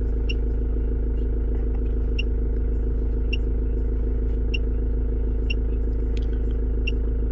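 Ford Transit MK6 2.0 TDDi four-cylinder diesel idling steadily, heard from inside the cab. Short high key beeps sound roughly once a second as the scan tool's arrow key is pressed.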